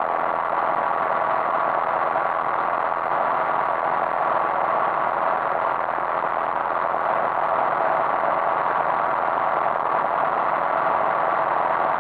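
Yamaha XVS1100 Drag Star's V-twin engine running steadily at cruising speed, heard together with road and wind noise on a bike-mounted action camera. The level holds even, with a faint steady hum.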